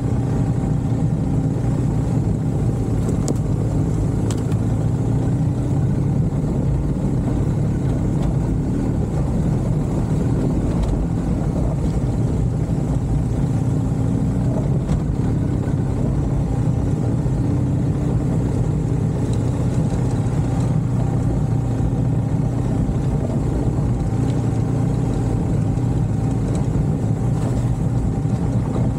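A vehicle engine running steadily, a continuous low drone that holds the same note throughout.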